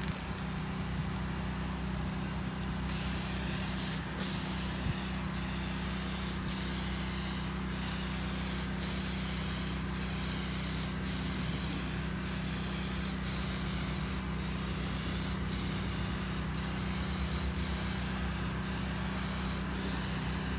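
Aerosol spray can of nitrocellulose lacquer hissing as a light mist coat is sprayed onto a bare wooden guitar body. The spray starts about three seconds in and runs in passes with a short break about once a second.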